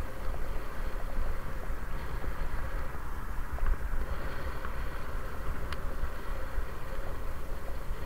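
Wind rumbling on the microphone of a camera riding a bicycle, over steady tyre and road noise, with one sharp click about three-quarters of the way through.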